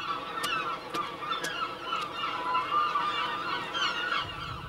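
A colony of large gulls calling, many cries overlapping one another.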